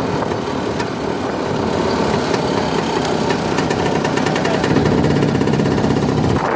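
Pannonia motorcycle's single-cylinder two-stroke engine running as the sidecar outfit rolls slowly along, getting a little louder over the last two seconds.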